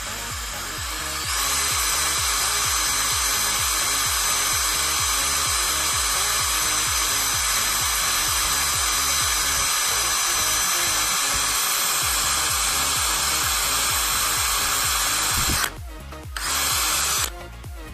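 An 18-volt cordless drill runs with a steady high whine as it bores into an iPhone's screen. It starts about a second in, stops shortly before the end, then runs again briefly, over background music with a steady beat.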